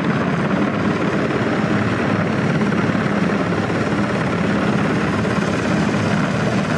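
Black Hawk-type helicopter flying low and approaching, its rotor and twin turboshaft engines giving a loud, steady beat.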